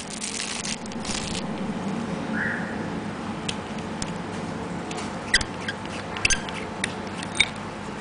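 A pen being slid out of its clear plastic sleeve and handled: a rustle in the first second or so, then scattered sharp clicks and taps, the loudest about five and seven seconds in.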